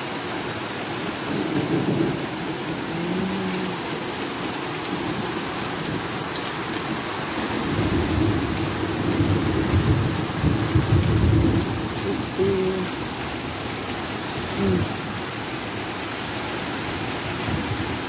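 Steady rain falling on wet paving and garden, with a low rumble of thunder about two seconds in and a longer one through the middle.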